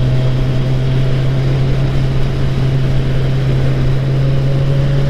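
Motorcycle engine running steadily at a constant cruising speed: a continuous low drone that holds one pitch, with no gear change or revving.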